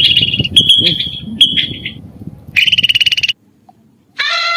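A bird's rapid pulsed trill with short, high chirps in between. The trill breaks off, comes back briefly, and after a short silence a long, steady animal call begins near the end.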